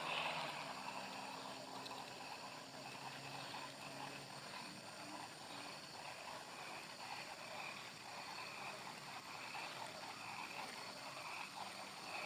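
Faint outdoor ambience: a distant engine hum that fades away over the first few seconds, under soft, evenly repeating pulses about every three quarters of a second.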